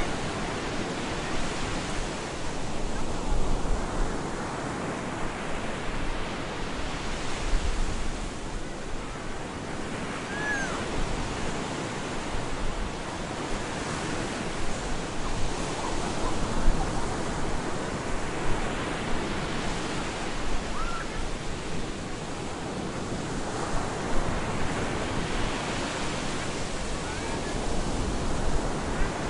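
Stormy surf breaking on a beach: a constant rush of waves that swells and eases every several seconds as each wave breaks and washes in. A few faint, short high chirps can be heard over it.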